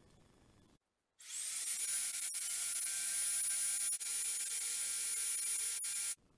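Random orbit sander sanding a beech cutting board flush. It starts about a second in, its motor whine rising quickly to a steady high pitch over the loud hiss of the pad on the wood, and it cuts off suddenly near the end.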